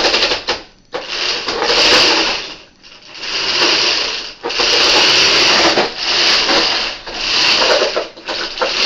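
Homemade tracked robot's electric drive motors and roller-chain drive running in about seven bursts of a second or so as it is steered on carpet, the treads dragging on the pile. Its builder puts the noise down to the #25 roller chain slipping on the motor sprockets, with motors he thinks are loose on both sides.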